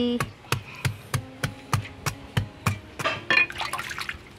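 A large knife chopping the spiky rind off a whole jackfruit, in short sharp strokes about three a second.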